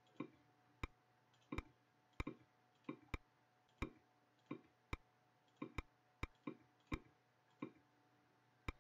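Computer mouse button clicking, a short sharp click about every half second, some in quick pairs, as letters of an email address are picked one at a time on an on-screen keyboard.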